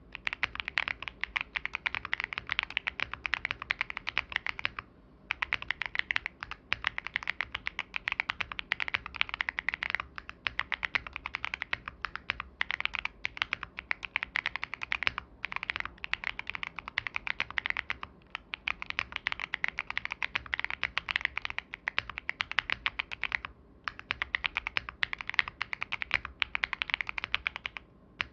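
Continuous fast typing on a Tofu 65 v2 custom mechanical keyboard with TTC Holy Panda tactile switches, carbon-fibre plate and GMK-style keycaps, case foam added for a fuller sound. Rapid key clicks in long runs, with a few brief pauses.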